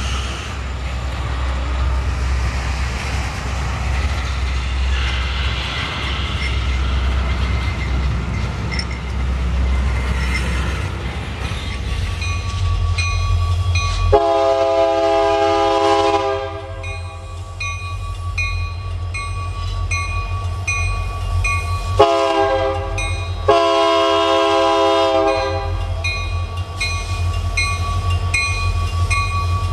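Double-stack container freight cars rolling past, a steady rumble of wheels on rail. Then Union Pacific diesel locomotives approach sounding their multi-chime air horn: one long blast about 14 seconds in and two more about 22 seconds in. A bell rings at an even pace under the horn, over the engines' low rumble.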